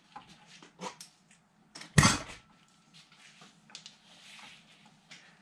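Metal clicks and clacks from handling an air hose and its fittings at a lathe tool post, with one sharp clack about two seconds in and a faint hiss near the end.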